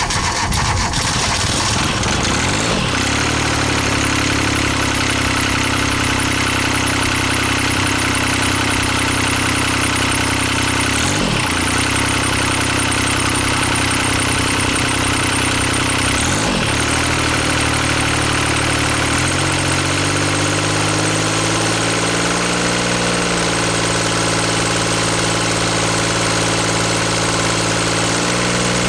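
Kubota three-cylinder diesel of a 1985 Cub Cadet 1512 garden tractor running just after start-up, its speed settling within the first few seconds into a steady idle. It briefly dips and recovers twice. Then the engine speed rises in steps past the middle, and once more near the end.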